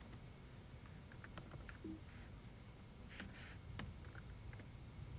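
Faint, irregular keystrokes on a computer keyboard as a command is typed.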